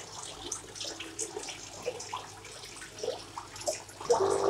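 Small clicks and rustles of a power adapter and its cable being handled and plugged in. About four seconds in, the portable AC-washing pump unit switches on with a steady hum.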